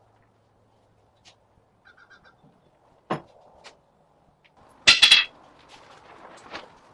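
Glued wooden boards and clamps being handled during a panel glue-up: a single knock about three seconds in, then a loud, sharp clatter a couple of seconds later, followed by light handling noise and small clicks.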